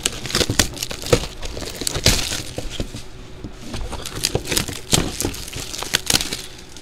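Plastic shrink wrap crinkling and tearing with many irregular sharp crackles as it is pulled off sealed trading-card hobby boxes.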